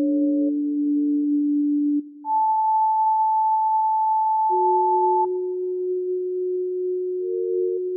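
Electronic soundtrack of pure, sine-like tones, each held steady for a second or more and overlapping at different pitches. After a short break about two seconds in, a higher tone is held for about three seconds, then gives way to a low held tone, and a brief middle tone comes in near the end.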